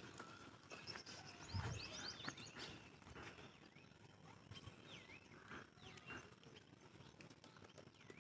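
Goat tearing and chewing grass: faint, irregular crunching clicks, with faint high bird chirps behind and a brief low thump about a second and a half in.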